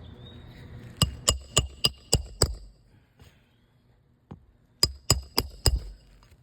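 Quick hammer blows with a metallic ring during a roof shingle repair: six strikes in about a second and a half, a pause, then four more.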